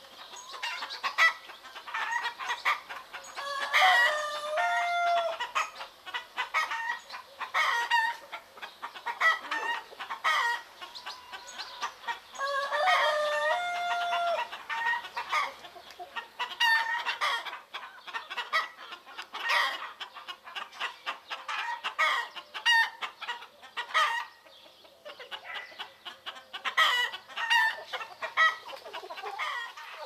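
A flock of hens clucking steadily in many short calls, with roosters crowing twice: once about four seconds in and again around thirteen seconds in.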